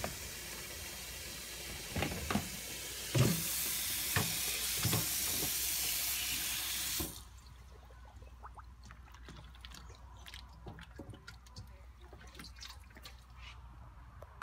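Faucet running water into a stainless steel bowl in a sink, with a few sharp knocks of metal on metal. The water is shut off abruptly about seven seconds in, leaving faint clicking handling sounds.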